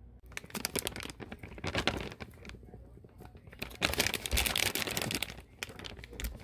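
Plastic bag crinkling as cauliflower rice is shaken out of it into a glass baking dish, in two bouts of rustling: one starting just after the start and a louder one about four seconds in.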